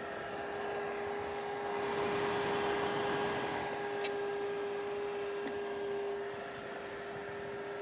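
Portable electric clothes dryer running: a steady fan hum with one strong tone and a rush of blown air. The air noise swells about two seconds in, and there is a small click about four seconds in.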